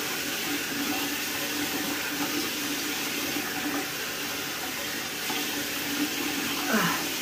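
Water running steadily from a bathroom sink tap while a face is rinsed over the basin.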